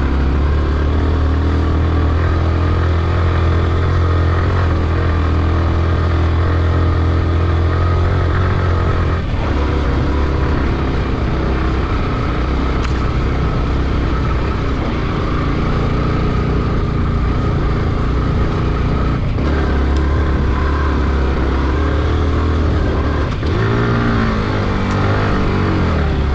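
Yamaha R15's single-cylinder four-stroke engine running under way as the motorcycle is ridden. The engine note holds steady, eases off about nine seconds in, picks back up around nineteen seconds, and rises in a rev near the end.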